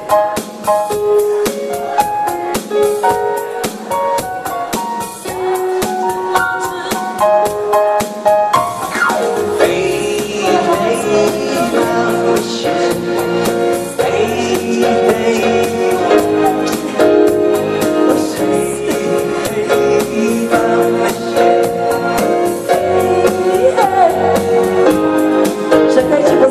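Live dance-band music from a keyboard duo with a fast, steady beat. A keyboard melody plays alone for the first several seconds, then a man and a woman sing into microphones over it, with a bass line coming in.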